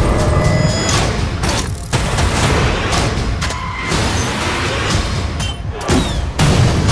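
Dense action sound effects: explosions, gunfire and crashes in quick succession, with two brief drops in the din.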